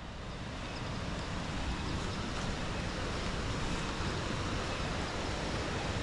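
Steady rushing rainforest ambience with faint high-pitched squeaks in the distance; the loud, nonstop insect call has cut out.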